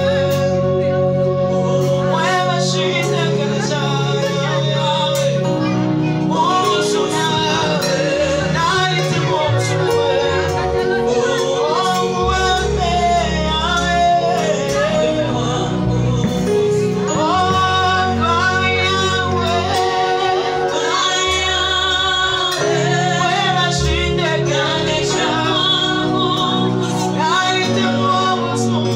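Girls' choir singing a gospel song through microphones, led by a woman vocalist, over instrumental accompaniment with a sustained bass line.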